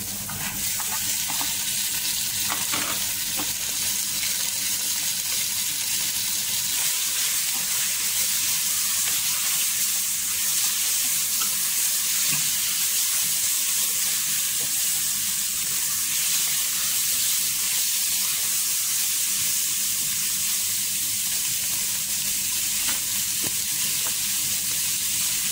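Raw chicken pieces frying in hot oil in a stainless steel pot, a steady sizzle, stirred with a wooden spatula that gives a few faint scrapes and taps.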